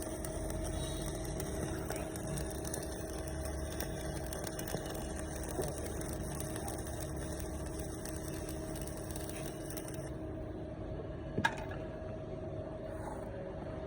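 Stick (arc) welding machine running with a steady electrical hum over a hiss; the high part of the hiss drops away about ten seconds in, and a single sharp click comes near the end.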